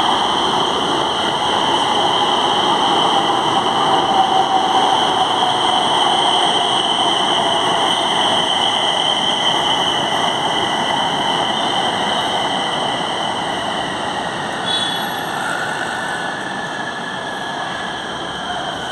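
Electric Pune Metro train running into an elevated station platform and slowing to a stop. Its wheels roll on the rails over a steady high whine, and a tone falls slowly in pitch over the first half as the train slows. The sound then fades gradually, with brief high tones near the end.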